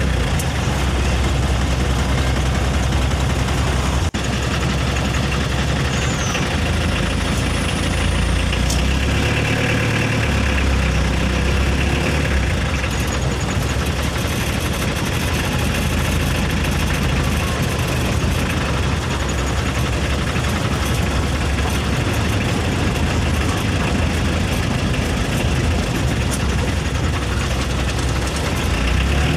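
Heavy truck engine idling steadily, with a short click about four seconds in.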